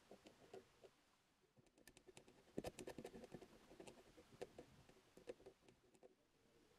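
Faint scratching of a fine steel scriber point drawing lines into the coated surface of an axe head: a run of short, irregular scratches and ticks, busiest about two and a half to three and a half seconds in.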